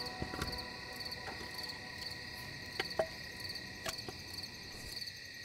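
Crickets chirping at night in a steady, pulsing rhythm, with a few faint clicks and taps.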